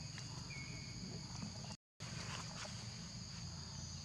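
Steady high-pitched drone of insects in the surrounding forest, unbroken at two pitches, with a short high whistle-like call about half a second in. The sound cuts out completely for a moment just before two seconds in.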